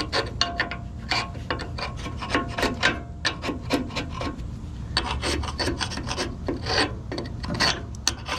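Quick back-and-forth hand strokes rubbing and scraping old paint and grime off a lathe's metal surface, about three or four strokes a second, a rasping sound.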